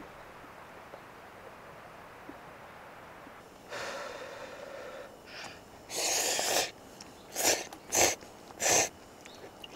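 A person slurping hot ramen noodles from a pot: breathy mouth sounds about four seconds in, then one longer slurp and three short, sharp slurps in quick succession.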